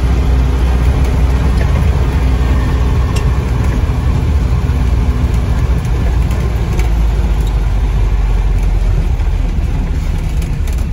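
A 1957 Land Rover Series 1's four-cylinder engine running as the vehicle drives along, heard from inside the cab. The steady low engine note becomes less distinct about halfway through.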